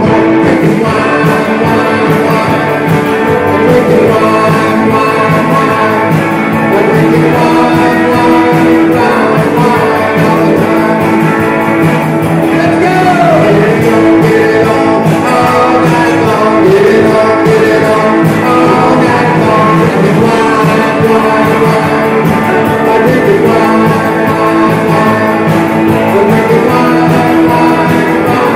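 Rock and roll band playing live: guitar and full band with a vocalist singing.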